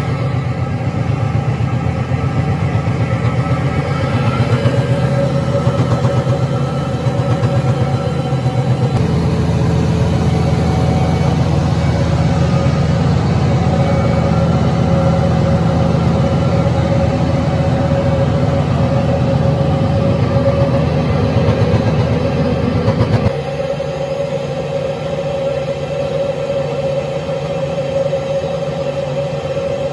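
KC Bruiser 1250 roller mill, driven by a JCB Fastrac tractor, running under load as it rolls barley with a little wheat and blows the rolled grain into a trailer. The tractor engine and mill give a steady machine drone with a hum. The sound shifts abruptly about nine seconds in and again about twenty-three seconds in.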